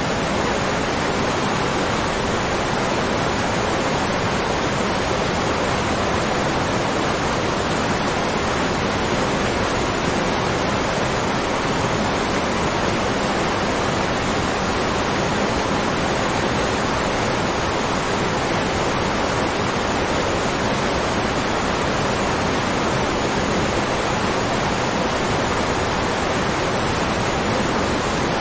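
Waterfall rushing: a steady, even roar of falling water with no change.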